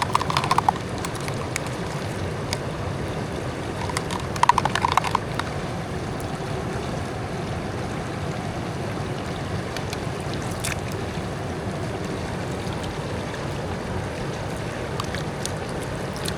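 River water rushing steadily, with a few brief clicks and short higher-pitched sounds over it.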